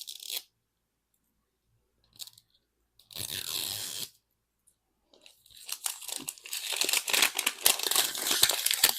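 Plastic wrapping being torn and crinkled off a Mini Brands capsule ball: a brief rip about three seconds in, then a longer stretch of crackling tearing in the last four seconds.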